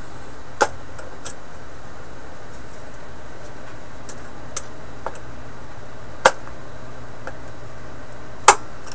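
Scattered sharp clicks and taps over a steady hiss, with three louder clicks: about half a second in, about six seconds in, and near the end.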